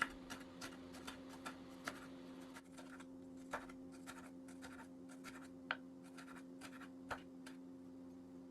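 Soft, irregular taps and clicks of hand food preparation on a kitchen counter, a few a second with an occasional sharper one, over a steady low hum.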